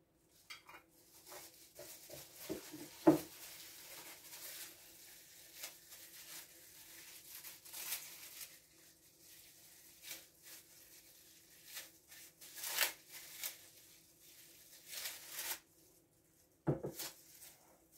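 Close handling noise at a kitchen table: rustling and scraping with scattered light knocks, most likely from gloved hands working with glass jam jars and lids. A sharp knock comes about three seconds in and a duller thud near the end, over a faint steady hum.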